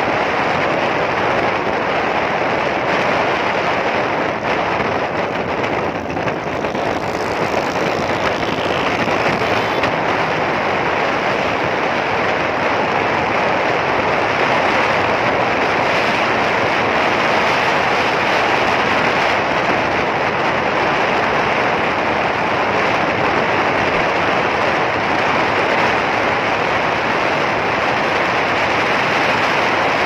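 Booming wind buffeting on the microphone of a camera mounted on the licence-plate holder of a Yamaha R15 sport motorcycle ridden at speed; a steady, loud rush.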